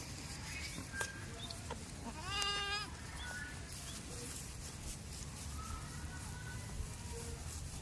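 A goat bleats once, a single wavering call of a little over half a second, about two and a half seconds in, over a low steady background.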